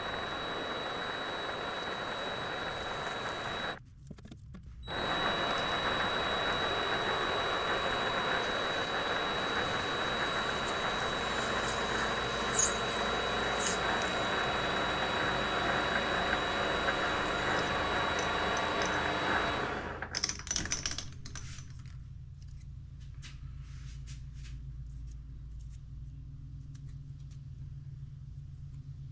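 Power tool, most likely a benchtop mini lathe, running with a steady high whine while cutting a plastic washer. It stops briefly about four seconds in, then stops again about twenty seconds in, leaving a low hum and a few light clicks.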